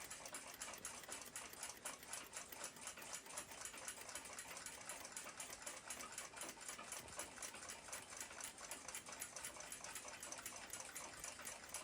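Faint, fast, even ticking of a balance-wheel clock movement, several ticks a second, from the Seikosha ship's clock running.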